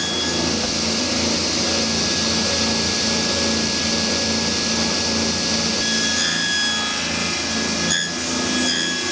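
Table saw running with its dust extractor, cutting wood: the blade is cutting a rebate into the solid-wood cabinet side to seat a piano hinge. The sound is steady, with a faint high whine throughout.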